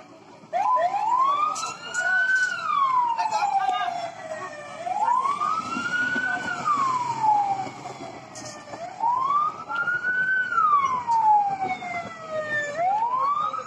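Ambulance siren wailing: each cycle rises quickly in pitch and then falls more slowly, repeating about every four seconds. Crowd voices and scattered clicks sound underneath.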